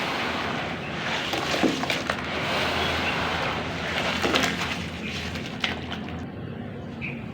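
Dry black clay crumbling and breaking up in water: a dense, sloshing hiss with sharp cracks every second or so, thinning out near the end.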